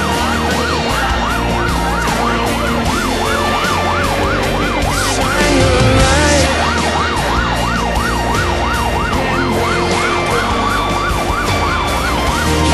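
Fire engine siren in a fast yelp, its pitch sweeping up and down about four times a second, heard from inside the cab over the truck's engine and road noise.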